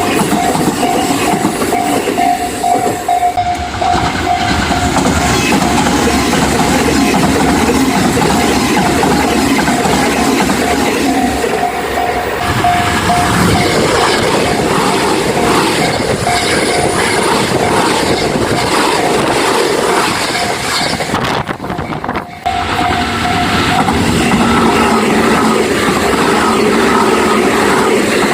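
Japanese railway level-crossing warning bell ringing over and over on one repeated tone, while a train runs past over the crossing.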